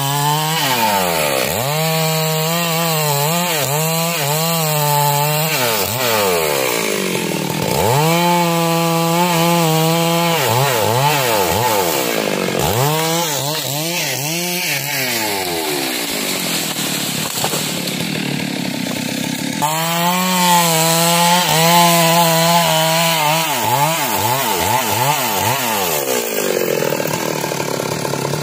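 Stihl two-stroke chainsaw cutting through a tree trunk, its engine pitch repeatedly rising and dropping back as the throttle is worked and the chain loads in the wood.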